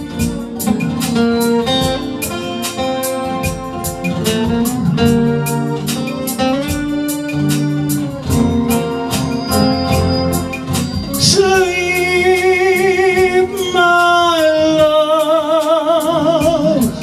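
Soul ballad music: a band with guitar and keyboard plays an instrumental passage over a steady beat. About eleven seconds in, a long held melody line with strong vibrato comes in over the chords.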